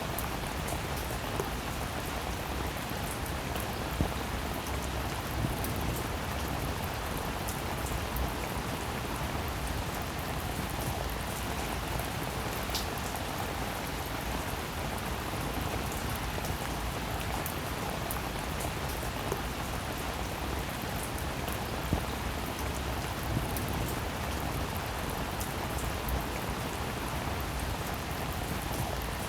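Steady rain falling, with individual drops ticking sharply here and there on a hard surface.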